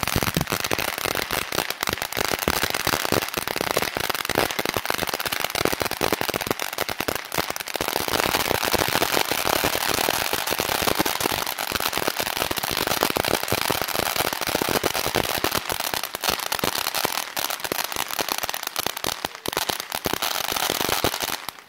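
Ground fountain fireworks spraying sparks with a dense, continuous crackle and hiss of many tiny pops. The crackle falls away at the very end.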